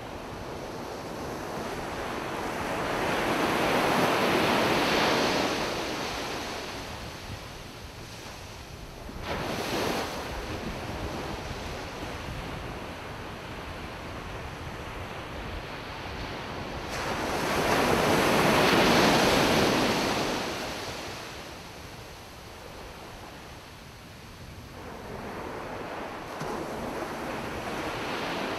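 Ocean surf on a beach: waves rise and break in slow swells of noise, the largest about four and about nineteen seconds in, with a shorter crash near ten seconds.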